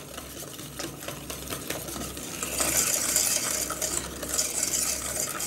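Wire whisk beating a thick paste of flour, sugar and part of the milk in a stainless steel pot: a fast run of clicks and scrapes of wire on metal. This is the first mixing of a lump-free muhallebi base. The whisking gets louder about halfway through and stops sharply at the end.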